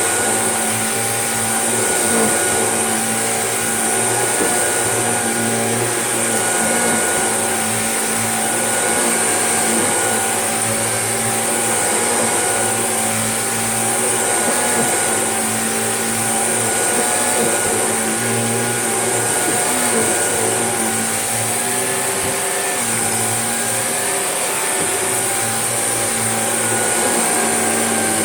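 Shark vacuum cleaner running steadily, pushed back and forth over carpet, with a high motor whine; its loudness swells and dips gently with each stroke. It is making a check pass over carpet already vacuumed by a Hoover Junior, to pick up what that machine missed.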